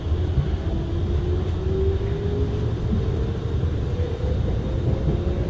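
R151 metro train running, heard from inside the car: a steady low rumble of wheels on track, with a motor whine rising in pitch that starts over lower near the end.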